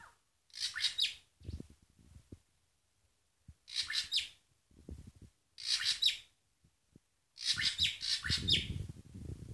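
Caged drongo (srigunting) giving short, harsh, scratchy calls about every two seconds, coming closer together near the end. Low thuds of movement sound between the calls.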